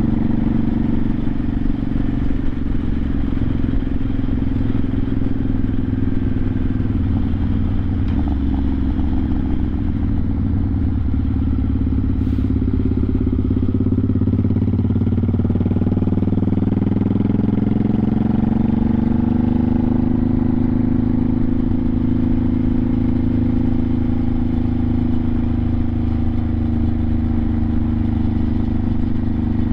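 1986 Honda Shadow 700 (VT700C) V-twin engine running under way. Its pitch falls as the bike slows about halfway through, then climbs as it accelerates back up and settles into a steady cruise.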